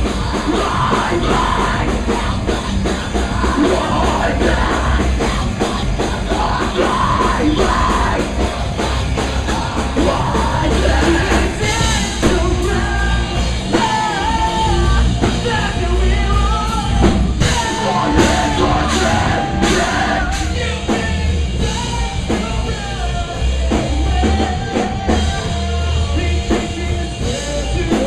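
Rock band playing loud, with drum kit, guitars and sung and yelled vocals.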